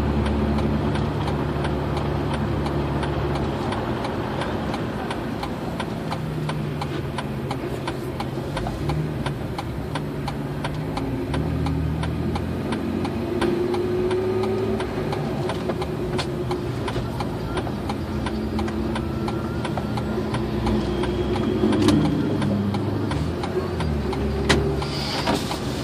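Road noise inside a car cruising on a concrete highway: a steady drone of tyres and engine, with the engine note shifting a little.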